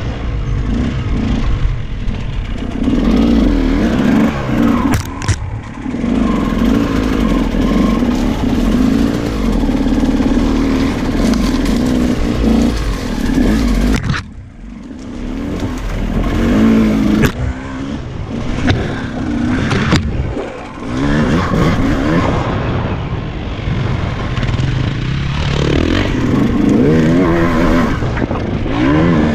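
KTM EXC 200 two-stroke enduro motorcycle engine revving up and down while riding off-road, with the throttle shut briefly about halfway through and again a few seconds later.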